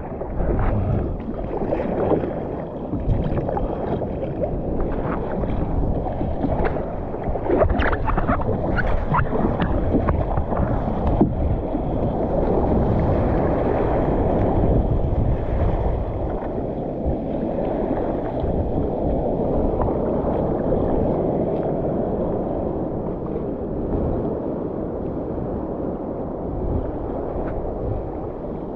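Sea water sloshing and splashing around a kayak being paddled in the surf, with a cluster of sharper splashes about eight to eleven seconds in.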